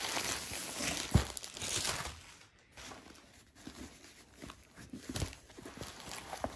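Clear plastic sleeve crinkling as a rolled diamond painting canvas is slid out of it, with a sharp knock about a second in. After about two seconds this gives way to quieter rustling and scattered taps as the stiff canvas is handled and unrolled.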